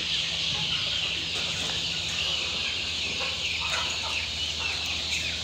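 A crowd of young chicks peeping continuously, many high, short, overlapping peeps running together into one dense chorus.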